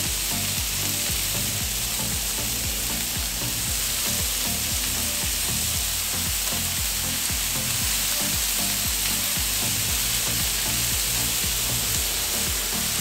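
Diced carne asada beef and bacon strips sizzling steadily on a hot Pit Boss flat-top gas griddle as raw bacon is laid down. Background music with a steady beat plays underneath.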